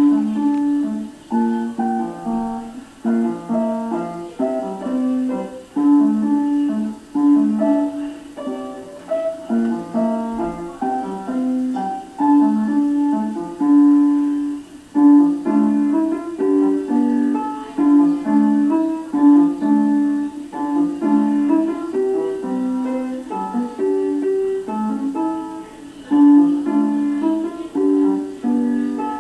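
Piano being played solo: a continuous flow of notes over steady low chords.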